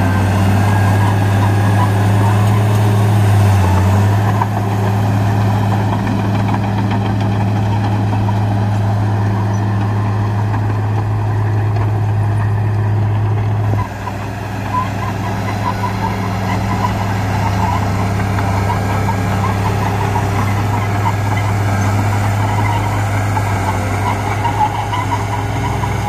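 Crawler bulldozer's diesel engine running steadily under load as it pushes soil, a deep, even drone. About halfway through the sound drops a little and changes pitch, and a light rattle comes in over the drone.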